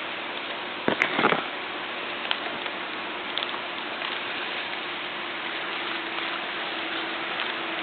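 A quick cluster of sharp clicks and knocks about a second in, from working a homemade paper bolt-action rifle, over a steady rain-like hiss; a few faint ticks follow.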